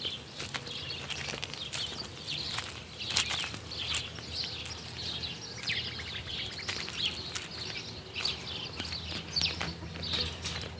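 Small birds chirping busily in many short, quick calls, with a few sharp clicks among them and a faint low hum underneath.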